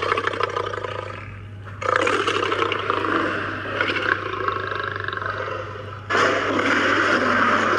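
Lion roaring: three long, rough roars, the second starting about two seconds in and the third about six seconds in, over a steady low hum.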